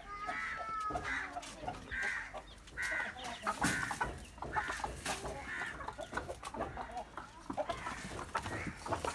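Chicken clucking harshly and repeatedly, roughly one short call a second, with a few light knocks in between.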